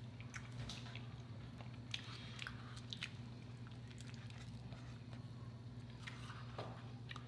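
Faint close-miked chewing of a soft sandwich, with scattered small wet mouth clicks, over a low steady hum.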